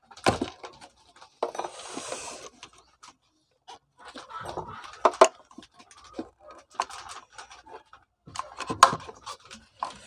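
Scattered clicks, knocks and scraping as the parts of an electric coffee grinder are worked at with a small tool to get a stuck part out. A few sharper knocks stand out, the loudest near the end.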